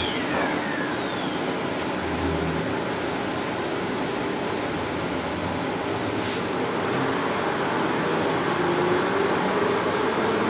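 Perth suburban electric train running, a steady rumble and hiss of the carriage with a short high falling squeal at the start. From about the middle, the traction motors' whine rises slowly in pitch as the train gathers speed.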